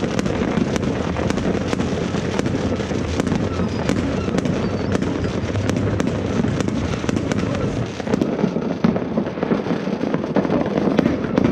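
New Year's fireworks going off all over a town: a steady rumble of many distant bangs with frequent sharp cracks and pops of firecrackers on top. About eight seconds in the hiss thins and single bangs stand out more.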